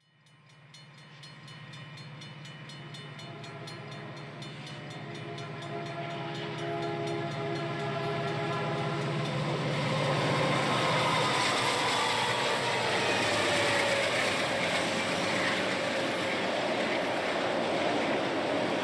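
Diesel locomotive horn blowing a long multi-note chord as a train approaches, growing louder, over the rhythmic clicking of wheels on rail joints. About ten seconds in the horn stops and the louder rush and rumble of the passing train takes over, with a few gliding tones.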